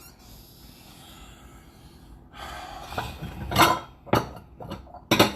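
Kitchen clatter: after a couple of seconds of quiet, a few sharp knocks and clinks of dishes and utensils being handled, getting busier near the end.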